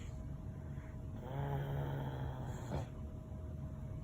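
Slow, rhythmic snoring: a drawn-out, pitched snore about every three seconds, over a faint steady hum, with one short click in between.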